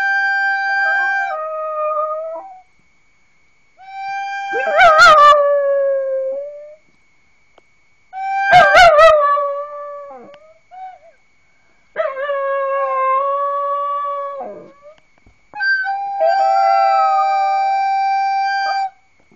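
A recorder playing long held notes while a dog howls along with wavering howls, in five bouts of two to three seconds each, separated by short pauses.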